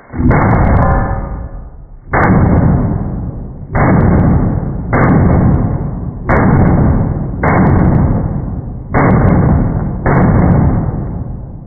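A string of gunshots, slowed down so that each is a deep, muffled boom with a long fading tail. Eight shots come at uneven intervals of one to two seconds.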